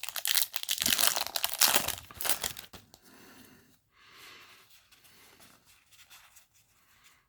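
A foil booster-pack wrapper being torn open: a loud, crackling rip for the first three seconds or so, followed by softer rustling as the pack and its cards are handled.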